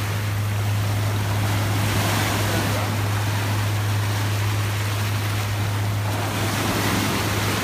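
Ocean surf breaking and washing through the shallows, an even rushing, under a steady low hum.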